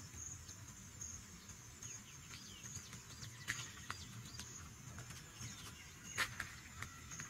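Outdoor nursery ambience: a steady, pulsing high-pitched insect call with scattered short bird chirps. A few sharp clicks are heard, the loudest about six seconds in.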